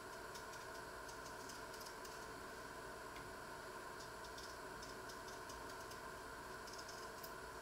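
Paring knife peeling a potato: faint, irregular little clicks and scrapes of the blade through the skin, coming in short clusters, over a steady background hum.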